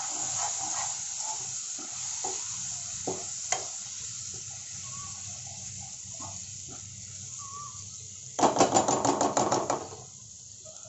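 Masala frying in oil in a steel kadhai, sizzling steadily while a metal ladle stirs it, with a few taps of the ladle on the pan. About eight seconds in comes a loud burst of fast ladle strokes, about seven a second, lasting over a second, after which the sizzle is quieter.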